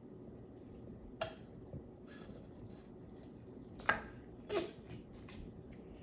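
Clear crunchy jelly slime with small ice-cube-like pieces being squished by hand: faint squelching with a few short, sharp pops and crackles.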